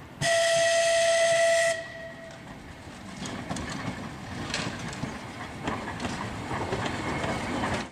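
A train horn sounds one steady note for about a second and a half. It is followed by the rumble and scattered clatter of a train running on the rails.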